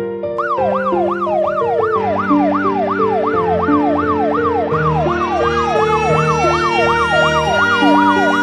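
Ambulance siren sound effect in a fast yelp, sweeping up and down about two to three times a second, laid over a stepping keyboard melody in a song intro. About five seconds in, a second siren joins in a slow rising wail and then holds its pitch.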